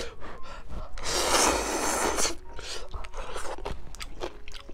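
A man slurps a mouthful of ramyeon noodles for about a second, then chews, with small clicks of chopsticks and bowl.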